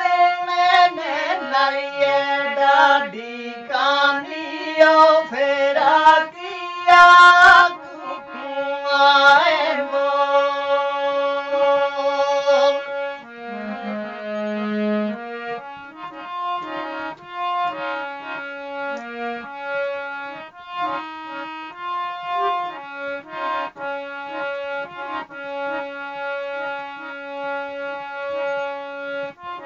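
Harmonium playing a pahadi folk tune over a held low drone, with a voice singing along for roughly the first half; after that the harmonium carries the melody alone.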